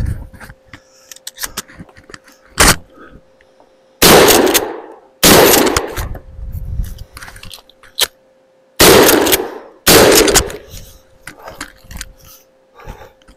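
Four shots from a Mossberg 590 pump-action 12-gauge shotgun, in two pairs a little over a second apart, each ringing out for about a second. Between them come short sharp clacks and small metallic clicks of the gun being cycled and loaded.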